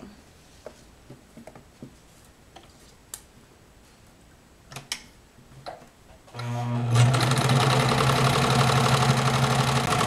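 A few faint clicks of fabric being handled, then about six seconds in an electric sewing machine starts and runs steadily, stitching ribbon onto nylon webbing.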